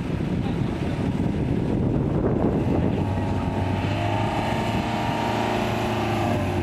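Boat engine running with a steady low hum; its pitched drone comes through more clearly about three seconds in.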